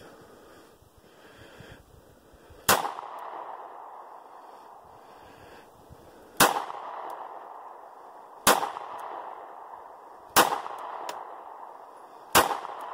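Five shots from a Sig Sauer P238 .380 ACP pocket pistol, the first nearly three seconds in and the rest about two seconds apart. Each shot is followed by a long fading tail.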